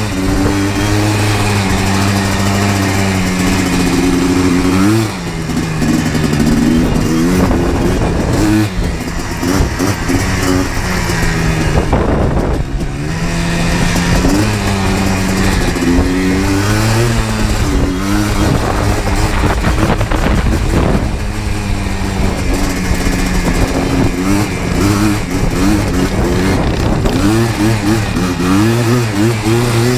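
Yamaha Blaster 200 ATV's two-stroke single-cylinder engine running under load, revving up and down with the throttle, with a short easing off about twelve seconds in.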